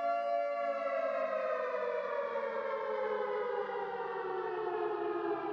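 Civil-defense-type siren wailing with one steady tone that slowly falls in pitch, like a siren winding down.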